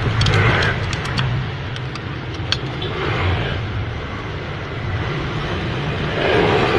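Steady low rumble of a running car engine, with a few light metallic clicks.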